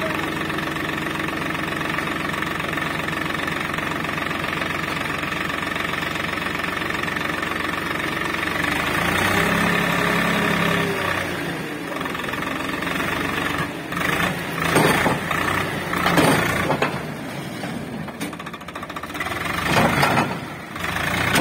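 Tractor diesel engine running steadily under load as it drives the hydraulic ram that tips a trailer bed full of soil. About halfway through the engine note shifts and rises, and in the last several seconds irregular louder bursts break in.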